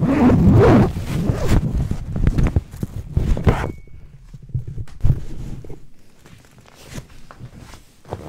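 Close rustling, scraping and knocks of a phone camera being handled and of a person shifting his body on a couch. It is loudest and busiest for the first few seconds, then settles to a few scattered knocks.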